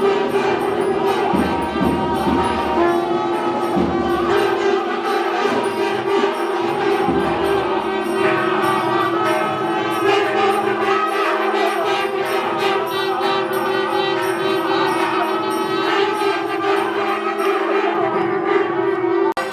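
Music with a steady drone under a moving melody, with a brief break near the end.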